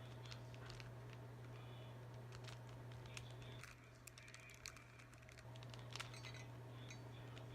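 Faint, quick plastic clicks of a Rubik's cube's layers being turned, over a steady low hum.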